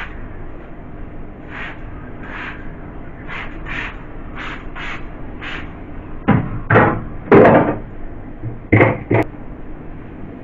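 A trigger spray bottle squirting about nine times in short hisses, then a few loud clunks and knocks in the second half as a fridge shelf is pulled out and handled.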